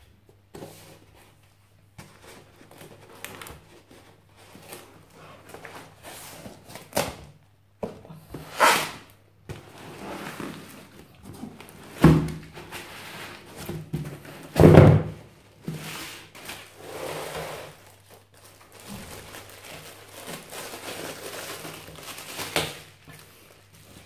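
Cardboard box being handled as a heavy 12 V AGM battery is taken out of it: flaps rustling and scraping, with a series of knocks and thuds. The two loudest thumps come about halfway through. A faint low hum runs underneath.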